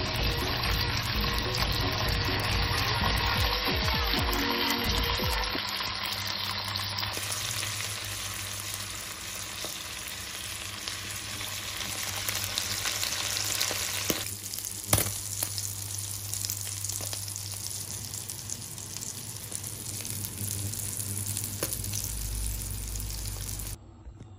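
Sardines frying in shallow oil in a pan, with a steady sizzle. There is one sharp click a little past the middle. The sizzle cuts off suddenly near the end.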